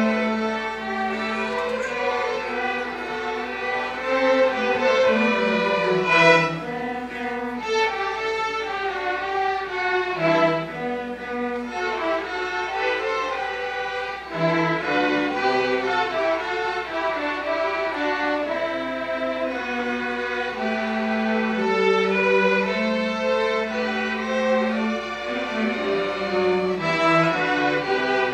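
Student string orchestra of violins and cellos playing a piece together, with sustained bowed notes and a moving melody over a low cello line.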